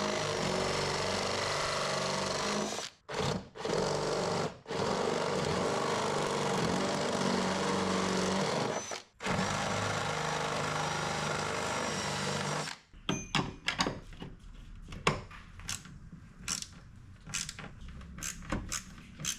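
Cordless power drill running in several long bursts with short pauses, working the door armor's bolts one after another. Its running stops about two thirds of the way through, and scattered clicks and knocks of hand-handled hardware follow.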